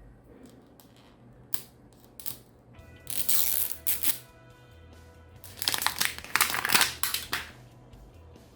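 Small plastic wrapper crinkling and tearing as a miniature toy pack is opened by hand, in two bursts (one about three seconds in, a longer one from about five and a half seconds), with a few light clicks, over quiet background music.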